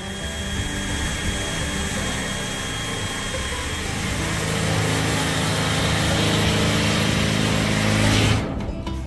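DeWalt cordless drill boring into steel sheet-metal wall cladding, getting louder over about eight seconds and stopping shortly before the end, with background music underneath.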